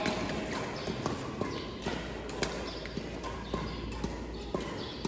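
Badminton rackets striking shuttlecocks: many sharp taps at irregular intervals from several courts, echoing in a large sports hall, with faint voices in the background.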